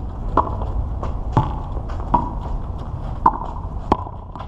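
Handball rally: a rubber handball smacked by hand and striking the concrete wall, five sharp hits about a second apart, each with a short ring, over a steady low rumble.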